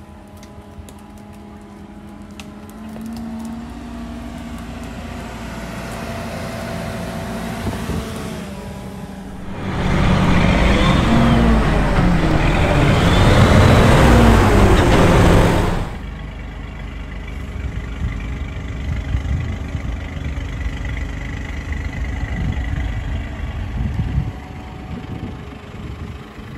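SHERP's Kubota diesel engine running as the vehicle drives off-road, its revs rising and falling. From about ten seconds in there are some six seconds much louder, the revs swinging up and down close by. It then drops suddenly to a steadier, quieter run.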